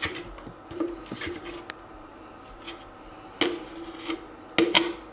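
Metal spoon scraping ghee out of a jar and tapping as the ghee drops into an aluminium pressure cooker: a series of short scrapes and knocks, some followed by a brief ring.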